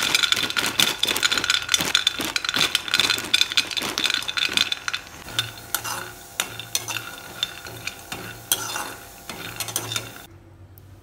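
Raw peanuts pouring into a steel kadai, rattling and clicking against the metal, which rings. After about five seconds this gives way to a metal ladle stirring and scraping the peanuts around the dry pan as they roast. The stirring stops shortly before the end.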